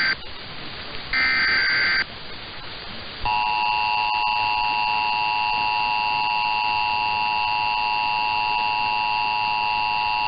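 Emergency Alert System test over AM radio. The last of the three SAME digital header bursts is a short warbling data screech. About a second later the EAS two-tone attention signal (853 and 960 Hz) starts and holds steady, with radio hiss underneath.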